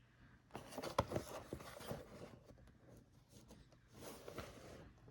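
Toy packaging being handled and opened: cardboard and plastic rustling and scraping, with a sharp click about a second in and a second spell of rustling near the end.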